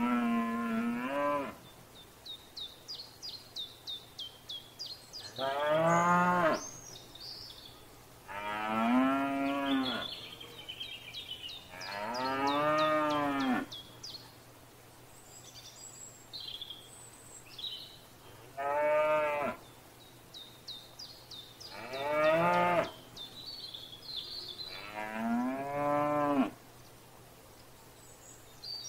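Cows mooing, seven long, drawn-out moos that rise and fall in pitch, spread through the stretch. Between the moos, a small bird chirps in quick runs of short, high notes.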